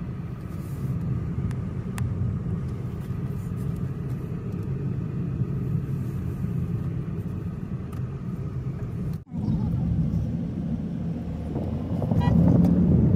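Car cabin noise while driving on a highway: a steady low engine and road rumble. It breaks off for a moment about nine seconds in and grows louder near the end.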